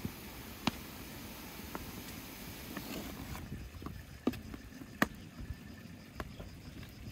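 Blackberry mixture boiling in a large pan: a soft bubbling hiss with a few sharp pops scattered through it. The hiss thins out about halfway through.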